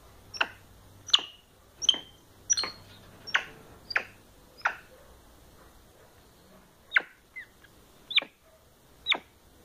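Capuchin monkey giving short, high squeaks that each drop quickly in pitch, about eleven in all: one every three-quarters of a second at first, then more spaced out.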